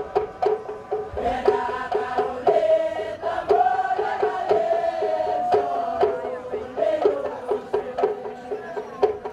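Papua New Guinea traditional dance music: a steady drum beat of about two strokes a second, with voices singing a chant over it from about a second in until about seven seconds.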